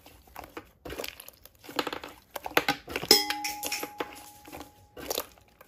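Fingers squeezing and pressing soft slime, with irregular sticky crackles and small pops. About three seconds in, a sharp chime-like ring starts and holds a steady tone for about two seconds.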